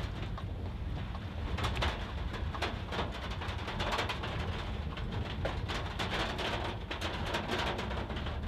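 Inside a moving car's cabin in heavy rain: a steady low rumble from the road and engine, with irregular sharp ticks and taps that fit raindrops striking the roof and windscreen.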